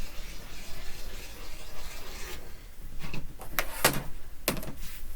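Rotary cutter drawn through quilting fabric along a ruler, a soft hiss that stops about two and a half seconds in, followed by four or five sharp clacks as the ruler and tools are handled on the cutting table.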